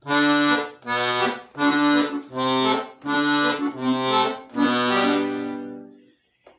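Accordion (gaita) playing six rhythmic chords over low bass notes, the last one held and dying away.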